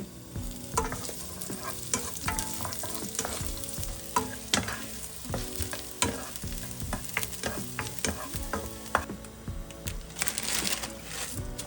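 Thinly sliced onion frying in olive oil in a pan, sizzling, while a utensil stirs it, clicking and scraping against the pan many times. The sizzle grows louder for a moment near the end.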